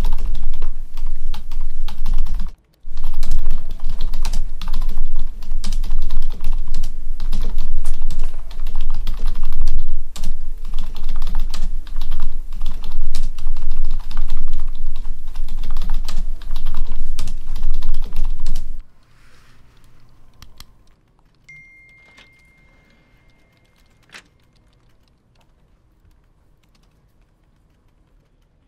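Rapid typing on a computer keyboard: a loud, dense clatter of keystrokes that stops suddenly about two-thirds of the way in. A few seconds later comes a faint, steady high tone lasting a couple of seconds, then a single soft click.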